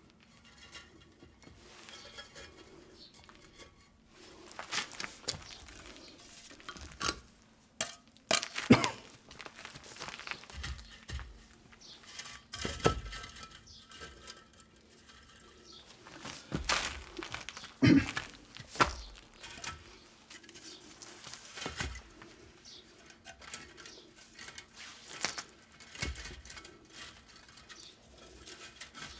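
Scattered clinks and knocks of hard objects being handled, with sharper, louder knocks about nine and eighteen seconds in.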